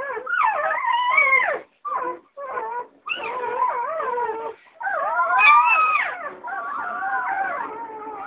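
Doberman puppies whining and howling in high, wavering cries, with short breaks about two and three seconds in.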